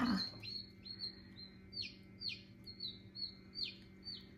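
A Copper Marans chick still half inside its shell peeping repeatedly, short high notes that mostly drop in pitch, two to three a second. A brief low falling sound comes right at the start.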